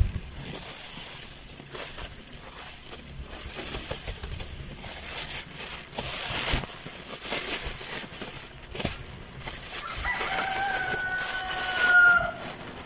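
A large plastic bag rustling and crinkling as it is handled and lifted. About ten seconds in a rooster crows once, one long call of about two and a half seconds that falls slightly in pitch and is the loudest sound here.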